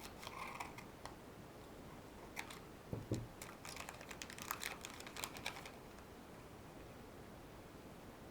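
Trading cards being handled and flicked through: a patter of light clicks and taps, thickest in the middle, with one soft thump about three seconds in. The last couple of seconds hold only faint room hiss.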